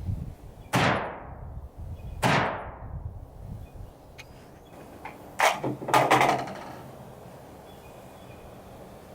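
Two gunshots about a second and a half apart, each trailing off in a long echo, then a short cluster of clicks and knocks about six seconds in.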